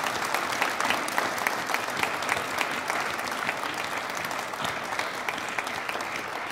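A congregation applauding, many hands clapping together steadily.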